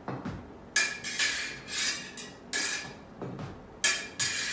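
Smallsword blades striking together in a parry-and-riposte drill: about five sharp metallic clinks, each ringing briefly.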